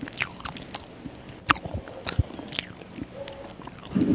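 Close-miked mouth sounds of a person chewing soft chicken liver curry and rice: irregular wet smacks and clicks. Near the end there is a brief louder squish as fingers pick up rice and liver from the plate.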